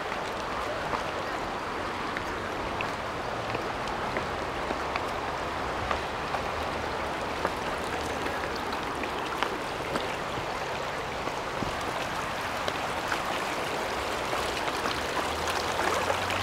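Steady rush of shallow river water flowing around and past stone stepping blocks, with scattered faint ticks.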